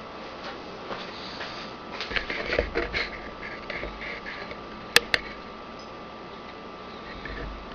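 Small clicks and rustles, with two sharp clicks in quick succession about five seconds in, over a faint steady hum.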